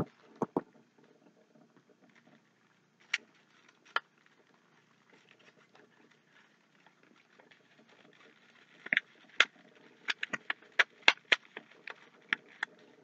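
Candy-bar wrapper crinkling and crackling in the hands in scattered sharp crackles, a couple about three seconds in and a quick run of them in the last four seconds.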